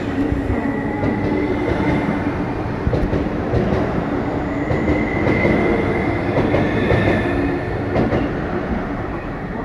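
MTR East Rail Line electric train pulling out of the station past the platform, a steady run of wheel-on-rail rumble and rattle with a high whine running through it.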